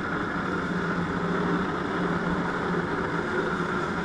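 Jet ski engine running at a steady, even drone, its pump driving water up the hose to a flyboard.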